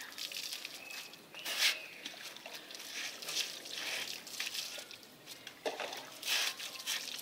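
Water poured from a mug over a dog, splashing and trickling onto a wet concrete floor in several short pours.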